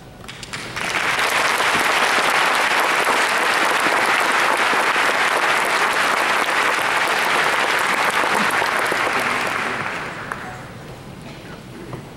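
Large audience applauding: a few scattered claps, then full applause about a second in that holds steady and dies away near the end.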